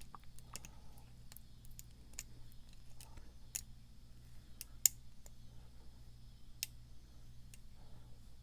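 Lock pick and tension wrench working the pins of a pin-tumbler lock: sparse, irregular light metallic clicks and ticks, the sharpest about five seconds in.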